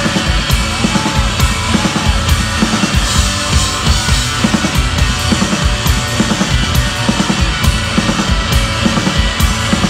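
Live rock band playing an instrumental passage on electric guitars, bass guitar and drum kit, loud and dense, with steady drum hits and no singing.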